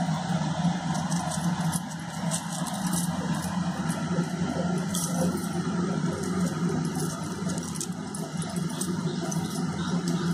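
Light metallic clinks and jangles of bangles and a steel plate as hands slit green chillies, over a steady low hum.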